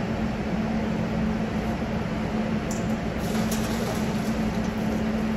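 Steady mechanical hum of kitchen equipment, a low drone over an even rush of noise, with a few faint clinks about three seconds in.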